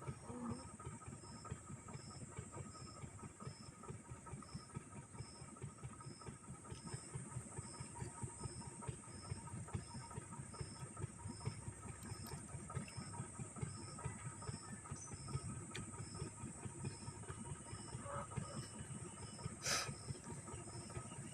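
Small DC-motor mini table fan running, a steady whir and hiss of the motor and blades with a faint regular tick about twice a second. One sharp click comes near the end.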